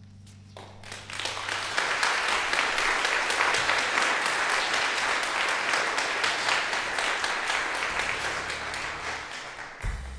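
Audience applauding: the clapping swells in over the first couple of seconds as the band's last held low chord dies away, stays steady and full, then starts to ease off near the end.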